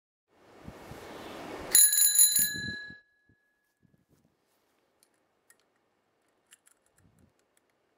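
A whoosh, then a bicycle bell rung in a quick ring of a few strikes, its bright high tones dying away about a second later. A few faint small clicks follow.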